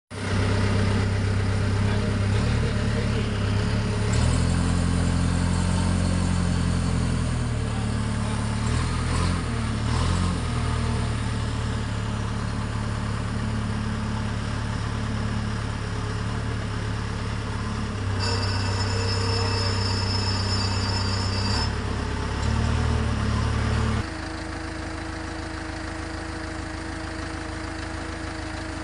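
Backhoe engine running, its pitch rising and falling as it works, with a high whine for about three seconds past the middle. Near the end it drops to a steadier, quieter idle.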